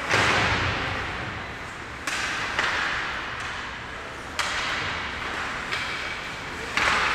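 Ice hockey play in an indoor rink: about six sharp cracks of the puck and sticks striking the boards and ice, each ringing on in the arena's echo.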